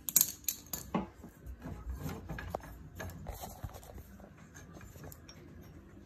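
Metal parts of a pit bike being handled by hand: irregular small clicks, knocks and rattles, the loudest knocks in the first second.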